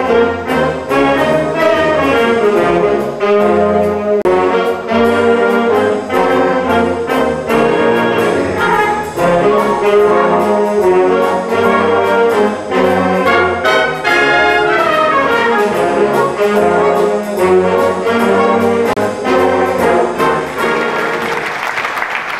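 Concert band playing loudly with the brass to the fore, building to a loud held chord near the end that then breaks off.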